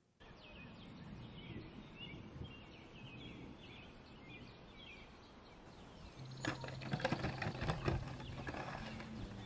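Small birds chirping repeatedly in the background; from about six seconds in, a paper bakery bag rustles and crinkles as it is handled, louder than the chirps.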